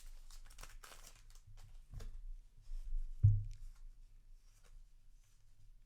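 Trading-card booster pack wrapper crinkling and tearing as it is opened, with a sharp click about two seconds in and a louder dull thump a little after three seconds, then faint rustling.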